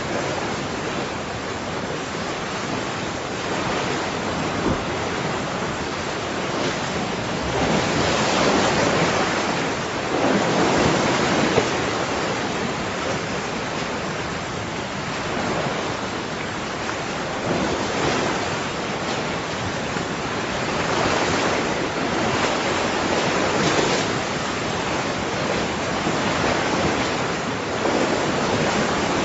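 Ocean surf breaking and washing ashore in a continuous rush, swelling louder with each incoming wave every few seconds.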